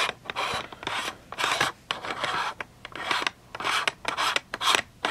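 Fingers unscrewing a screw-on Zeikos 0.34x fisheye/macro lens attachment from the camera's lens, the threads and hands rasping and rubbing close to the microphone in a run of short, irregular scrapes, about two a second.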